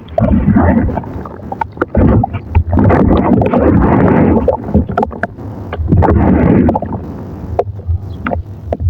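Thick wet mud paste squelching and sloshing, with sharp wet clicks and pops. It comes in swells of about a second each and eases off near the end.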